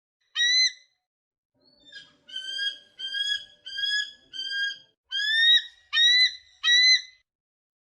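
An eagle calling in high, piping notes that rise slightly in pitch: one note, then after a pause a run of seven in quick succession.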